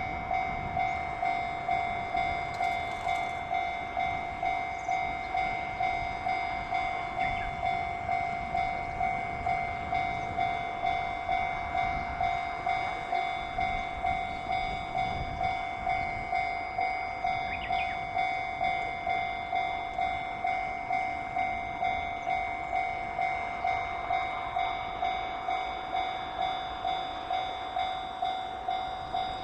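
Japanese level-crossing warning alarm ringing in a steady, even beat of about one and a half strikes a second, the signal that the crossing is closed for an approaching train.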